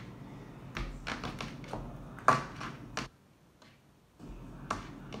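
A series of light taps and knocks from objects being handled, with one sharper, louder knock about two seconds in and a short near-silent pause just after three seconds.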